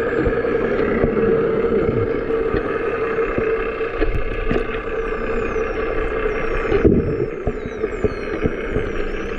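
False killer whales whistling and clicking underwater: many short, high whistles sliding down in pitch, few at first and many from about six seconds in, with scattered clicks. Under them runs a steady drone of a boat engine carried through the water.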